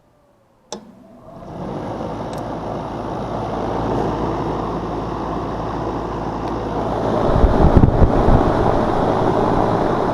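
A click as the package AC unit is powered, then its condenser fan motor starting and running: a steady airy rush with a low hum that builds over about a second. The compressor is disconnected, so only the fan is running. A few low thuds of wind on the microphone come about three-quarters of the way through.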